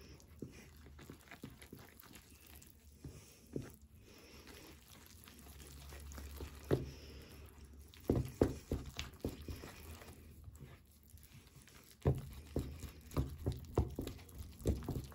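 Wooden spoon stirring flour into a wet yogurt mixture in a bowl to form a shaggy dough: soft scrapes and irregular knocks of the spoon against the bowl. The knocks are sparse at first and come in busier runs about eight seconds in and again from about twelve seconds.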